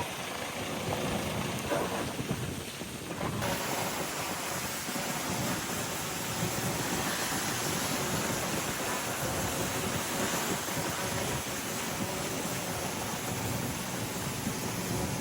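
Komatsu D31A bulldozer working, heard as a steady rumbling roar with a hiss over it; the hiss grows fuller about three seconds in.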